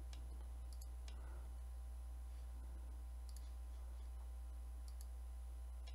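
A few faint, scattered clicks of a computer mouse and keyboard over a steady low hum.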